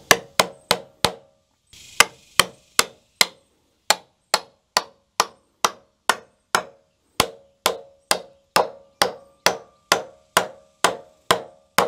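A claw hammer driving wooden pegs into drilled holes through the peak joint of a pair of timber rafters. A quick run of blows is followed by a short pause, then steady strikes at about two and a half a second. Later on the blows take on a ringing note as the pegs go home.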